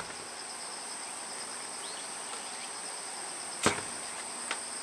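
Steady high-pitched chirring of insects, with a second, pulsing insect note a little lower beneath it. One sharp knock about three and a half seconds in.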